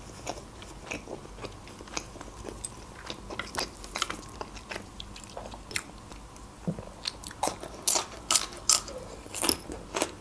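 Close-miked chewing of a mouthful of beshbarmak, flat noodles and boiled meat: a run of soft wet mouth clicks, louder and crisper over the last few seconds.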